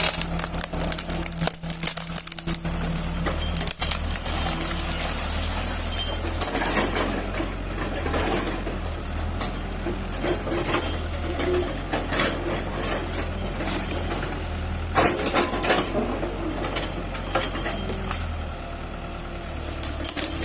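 Heavy excavator-type machine's engine running steadily, with scattered knocks and clatter over it.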